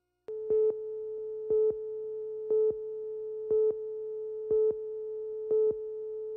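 Broadcast slate countdown tone: a steady mid-pitched reference tone with a louder beep once a second, six times, marking each second of the countdown.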